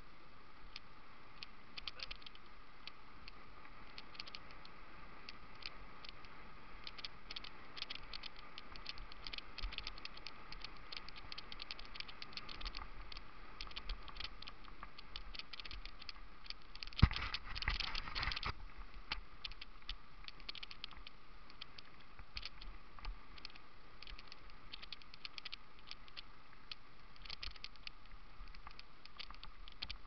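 Mountain bike rolling down a rough dirt and grass track, heard through an onboard camera: constant light rattling and clicking from the bike and the camera mount, with a faint steady whine underneath. About seventeen seconds in comes one sharp knock, then a second or so of heavier rattling.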